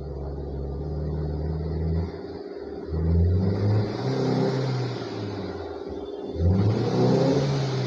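Car engine running rough with a multiple-cylinder misfire. It stumbles and its note dips twice, each time picking back up with a surge.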